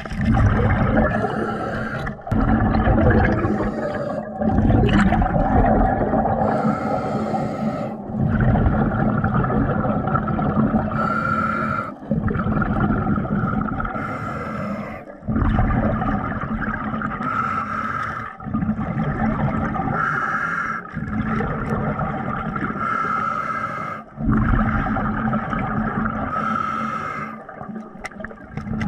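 Underwater sound of a diver's breathing: air bubbling out in repeated bursts about every three seconds, over a steady motor hum.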